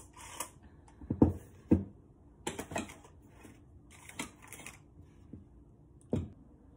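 Round metal baking tins set down and shifted on a metal baking tray: a string of knocks and scrapes, the two loudest a second and a half in and about half a second apart.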